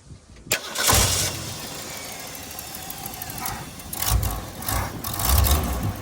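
1966 Ford Bronco engine started on its newly installed starter: it catches about a second in and runs steadily, with a few throttle blips near the end.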